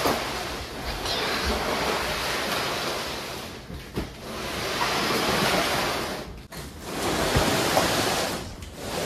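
A large cardboard TV box sliding and scraping across a hardwood floor as it is pushed, in three long pushes with brief pauses between them.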